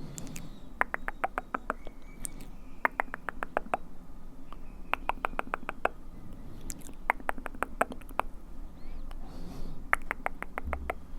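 ASMR mouth sounds close to the microphone: quick runs of wet mouth clicks, about six to ten clicks in each run, repeated several times with short pauses between.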